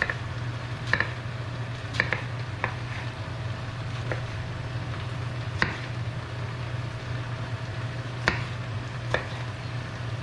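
Knife slicing a tomato on a cutting board, the blade knocking the board about eight times at uneven intervals. Under it, a steady low hum and the faint sizzle of bell peppers and onions frying in the covered pan.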